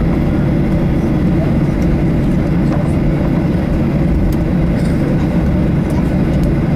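Cabin noise inside a Boeing 737-800 taxiing: its CFM56 jet engines running at low taxi power, heard as a steady low drone with no rise in thrust.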